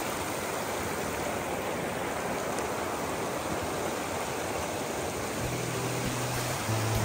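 Steady rush of water from a rocky waterfall. Soft background music with held low notes fades in about five and a half seconds in.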